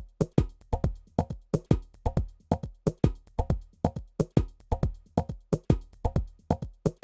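Electronic drum-machine loop of short, clicky percussive hits, about three to four a second, over a steady low bass, playing through a mastering limiter while its fast-limiter settings are being adjusted.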